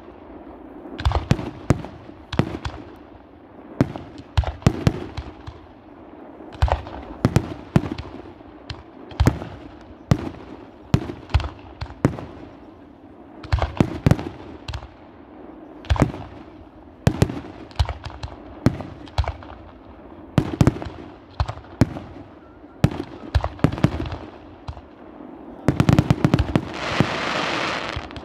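Aerial fireworks going off in a long, irregular run of sharp bangs, often several in quick succession. Near the end comes a burst of dense hissing crackle.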